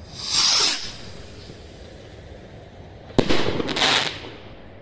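Firework rocket launching with a short whoosh that falls in pitch as it climbs away. About three seconds in, it bursts with a sharp bang followed by about a second of crackling.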